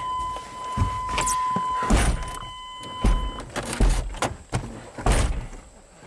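Several dull thumps and rustles inside a pickup truck's cab as the camera is handled and moved around, with a steady high-pitched tone that stops about three and a half seconds in.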